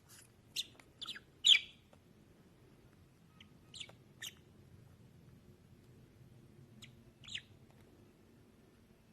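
A bird chirping: short, sharp chirps that fall in pitch, coming in little groups of two or three with gaps between. The loudest is about a second and a half in.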